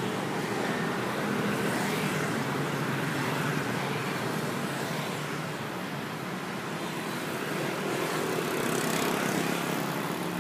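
Steady background road-traffic noise with a low engine hum, swelling twice as vehicles pass.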